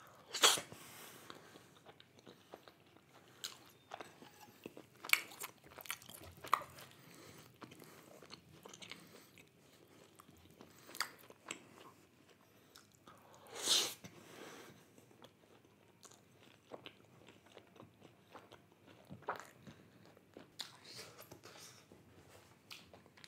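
Close-miked mouth sounds of a man eating a spicy chicken curry: chewing and biting, with irregular wet smacks and clicks. Two louder, longer noisy sounds come about half a second in and about fourteen seconds in.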